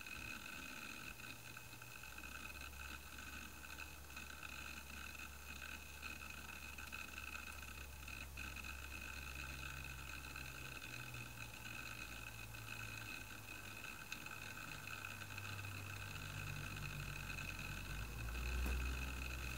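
iBook G4 laptop's disk drives running as it boots into the Mac OS X Tiger installer: a low hum that shifts in pitch, strongest near the end, under a steady high whine, with an occasional faint click.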